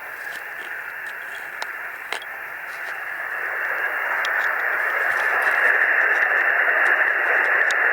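Pocket shortwave radio receiver hissing with band-limited static, growing steadily louder over the first several seconds, with a few faint clicks.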